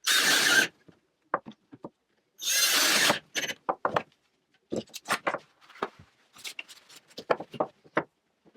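Workbench handling sounds: two short bursts of rough, hissing noise near the start, then a run of scattered clicks and light knocks as wood, plates and tools are handled.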